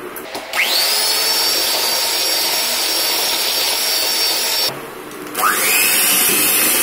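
Electric hand blender motor spinning up with a rising whine about half a second in and running steadily. It is switched off briefly near five seconds, then spins up again. It is beating an egg into creamed butter, oil and sugar.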